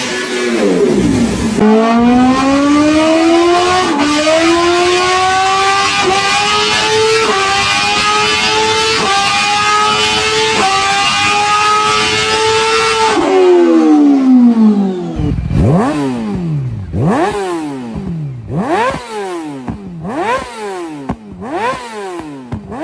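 Motorcycle engine accelerating hard through the gears: the pitch climbs steadily and dips briefly at each of several upshifts. The pitch then falls away, and the engine is revved up and down in quick blips about once a second.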